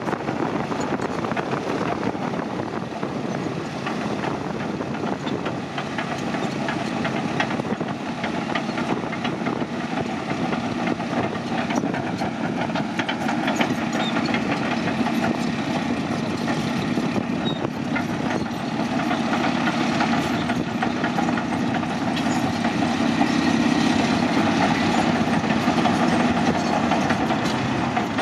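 Caterpillar D9N crawler dozer working: its diesel engine running steadily with the rapid clatter of its steel tracks, growing somewhat louder toward the end.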